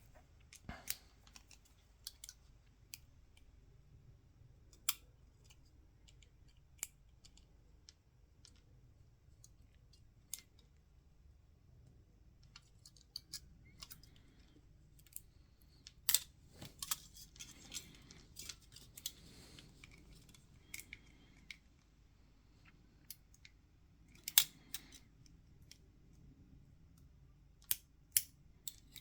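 A small metal tool clicking and scraping against a metal plate in a Canon EOS 5D's sensor assembly, as it is pried at without coming free. Faint, scattered sharp ticks with a few short scrapes.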